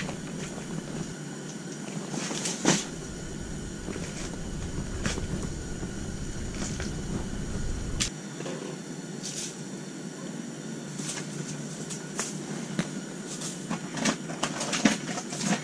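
A steady hiss, with scattered light clicks and knocks as fishing tackle and a freshly caught fish are handled.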